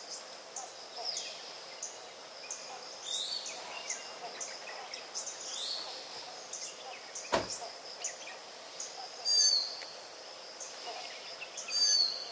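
Forest ambience: a steady high insect drone with a repeated ticking call, and short chirping calls of small birds, the two loudest about two-thirds of the way through and near the end. A single sharp click about halfway through.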